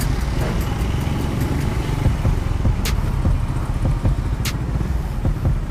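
Motorcycle engine running at low speed in slow city traffic, a steady low rumble. Two sharp clicks come about three seconds in and again a second and a half later.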